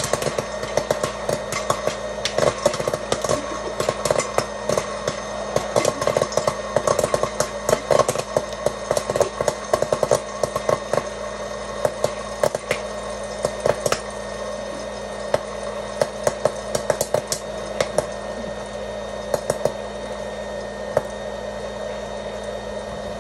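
Hot-air popcorn maker running with a steady fan whir while kernels pop in many sharp cracks. The pops come thick and fast at first, then thin out after about fourteen seconds as the batch nears its end.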